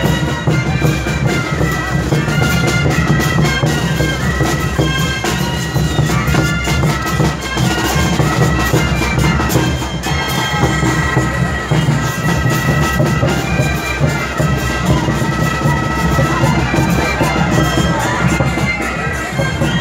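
Tarqueada music: a troupe of tarkas, Andean wooden duct flutes, playing a melody in unison over bass drums, snare drums and a crash cymbal.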